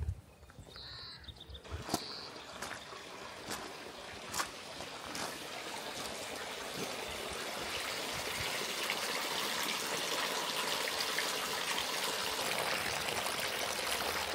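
Water trickling and splashing steadily, growing louder over the first half, with a few sharp clicks in the first half.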